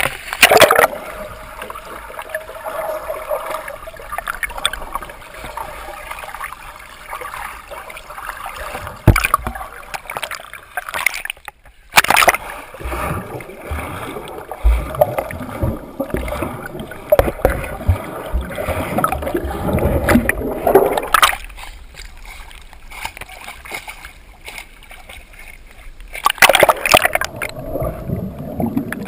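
Choppy lake water splashing and sloshing over a GoPro camera held at the surface, with bubbling and gurgling when it goes under; several loud splashes along the way.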